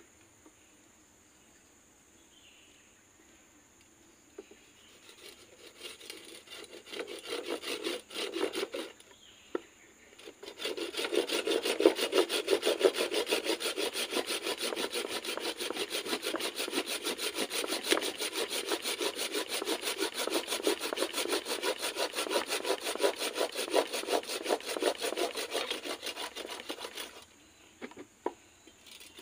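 Curved pruning saw cutting through a thick woody anting putri (water jasmine) trunk. It starts with a few slower strokes, pauses briefly, then settles into a long run of fast, steady back-and-forth sawing that stops near the end.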